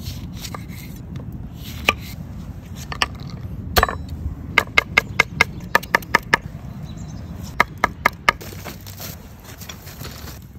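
Chef's knife chopping on a wooden cutting board, cutting a lemon and mincing garlic: a few separate cuts, then a quick run of about eight chops around the middle, then a few more. A steady low rumble runs underneath.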